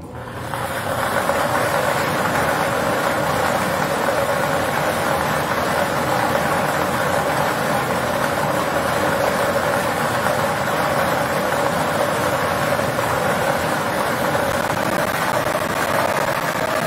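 Air blower of a lottery ball-mixing machine starting up and then running steadily, blowing the plastic balls about inside the clear drum. The sound builds up over the first second, then holds even.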